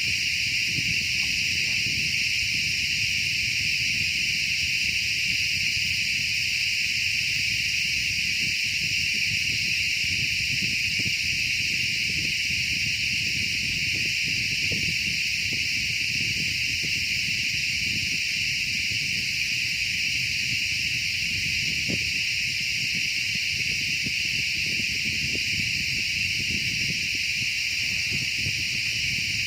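Loud, steady insect chorus, a continuous shrill buzz that does not let up, over a low rustling underneath.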